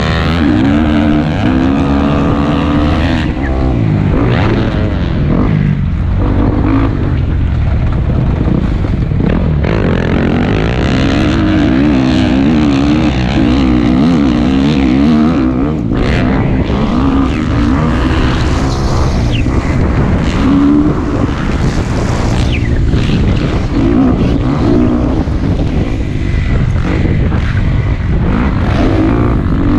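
Dirt bike engine running hard on a motocross track, its pitch climbing and dropping again and again with the throttle and gear changes, with wind rushing over the microphone.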